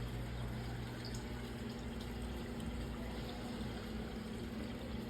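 Aquarium filter running: a steady trickle of water over a low, constant pump hum.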